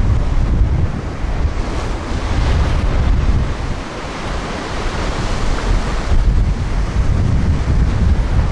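Ocean surf surging over a rock shelf, seawater washing across the ledges and pouring off their edges, with heavy wind buffeting on the microphone. The wash swells about two seconds in, eases, and builds again.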